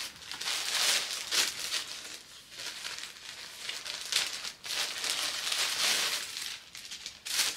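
Clear plastic zip bag of clothes crinkling and rustling in the hands, on and off, as it is opened and the clothes are taken out.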